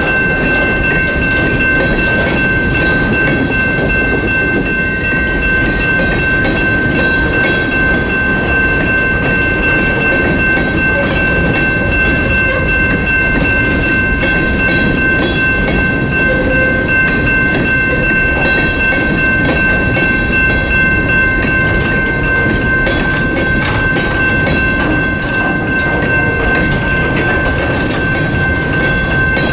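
Coal hopper cars rolling past a grade crossing: a continuous rumble and clatter of wheels on the rails, with a steady high-pitched tone over it.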